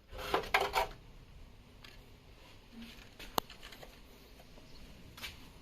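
Brief rustling and clattering handling noises in the first second, then a single sharp click about three and a half seconds in.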